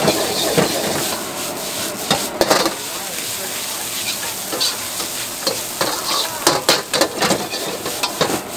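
Metal ladle scraping and knocking against a wok as food sizzles and fries over a gas flame. The scrapes come in quick clusters, about two and a half seconds in and again around six and a half to seven and a half seconds.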